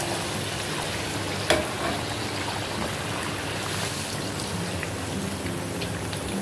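Puris deep-frying in hot oil in an aluminium kadhai: a steady sizzle. A single sharp click about a second and a half in is the loudest moment.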